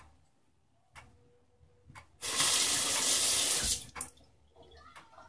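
Bathroom sink tap turned on, running strongly for about a second and a half, then shut off. A wall clock ticks about once a second.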